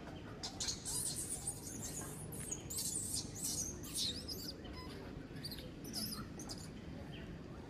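Baby macaque crying in rapid, high-pitched squeals, thick in the first half and thinning out after about four and a half seconds, once it is nursing.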